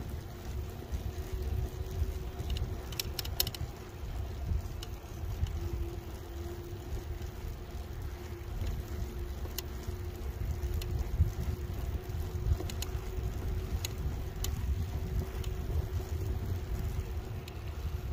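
Wind rumbling on the microphone of a moving electric bike, with a steady faint hum from its motor and a few short sharp ticks scattered through.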